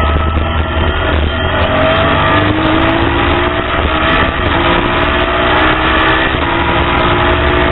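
Race car engine heard from onboard under hard acceleration, rising in pitch through the gears with brief drops at upshifts about four and six and a half seconds in, over constant wind and road noise.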